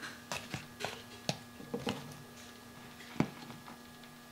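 Slotted spoon scraping and tapping against a bowl of floured chicken pieces, with pieces dropping into a skillet: a run of light, irregular clicks and knocks, the sharpest about three seconds in, over a faint steady hum.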